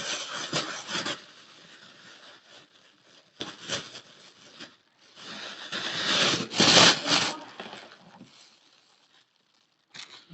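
Natural chalk being bitten and chewed close to the microphone: several bursts of gritty crunching, the loudest about six to seven seconds in.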